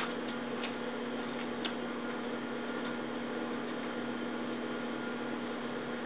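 GE microwave oven running with a steady electrical hum, with a couple of faint ticks in the first two seconds from a metal spoon sparking inside it.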